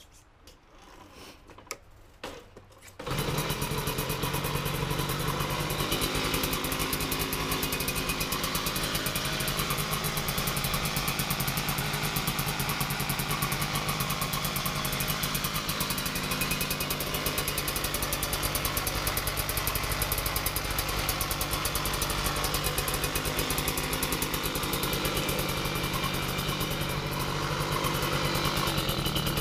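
Puch Maxi Luxe moped's two-stroke engine, fitted with a chambered expansion pipe, starting: a few faint clicks, then about three seconds in it catches and settles into a steady idle.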